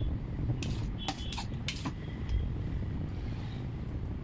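Several short, sharp clicks from a palette knife knocking against a cake turntable while cream is spread on a chocolate sponge layer, over a steady low background rumble.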